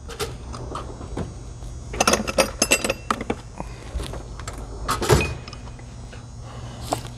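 Metal clicks and rattling as a .401-shank bit is test-fitted into the barrel of a pneumatic air hammer. There is a quick run of clicks about two to three seconds in and a louder clatter with a short scrape near five seconds, over a steady low hum.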